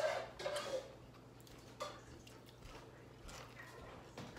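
A brief voice sound at the start, then faint eating sounds: a few small clicks and quiet chewing as food is eaten by hand.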